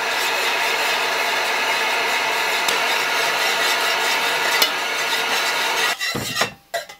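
Electric heat gun running: a steady blowing hiss with a motor hum, pre-warming a glass candle jar before the wax is poured. It switches off about six seconds in, followed by a few light knocks.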